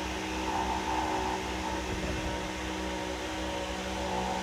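HY14F mini excavator running with a steady, even hum.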